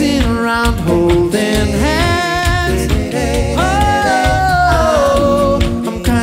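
A cappella vocal group singing a Christmas song, with a rhythmic vocal bass and vocal percussion under the backing voices. A lead voice holds long notes, one of them sliding down about five seconds in.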